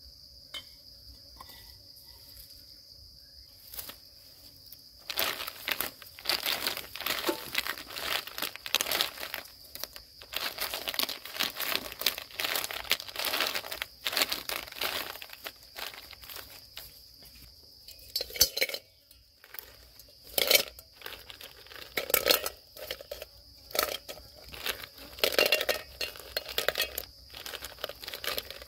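Close, irregular crinkling and crunching handling noises that start about five seconds in and come and go, over a steady high-pitched insect drone.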